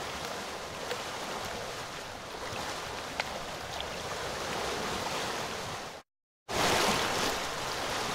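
Steady rush of flowing floodwater. It drops out to silence for half a second about six seconds in, then comes back louder.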